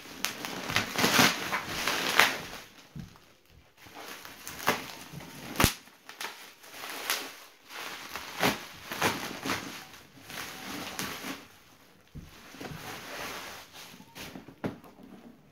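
Bubble wrap being pulled apart and unwrapped by hand: irregular plastic crinkling and rustling, broken by short sharp snaps.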